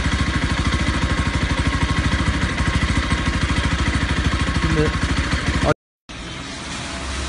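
Bajaj Pulsar 200 NS single-cylinder engine idling steadily with an even, regular exhaust pulse. This is its stock exhaust sound, with the brass plug sealing the hole drilled in the exhaust so no gas escapes. The sound cuts off suddenly about six seconds in, giving way to a quieter background.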